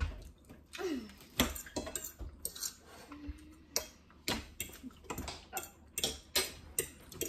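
Forks clinking and scraping on breakfast plates as several people eat: irregular sharp clicks, about two or three a second.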